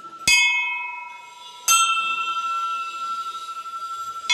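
Temple bell struck twice, about a second and a half apart, each strike ringing on in a few clear steady tones that slowly fade.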